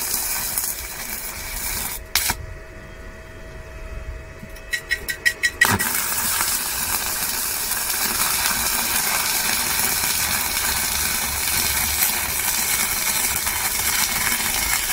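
Stick-welding arc from a Parkside PISG 120 D5 inverter welder running a 2 mm electrode at about 70 amps: a steady hiss that breaks off about two seconds in. Near five seconds a quick run of clicks is heard as the arc is struck again, and then the steady hiss of the arc runs on.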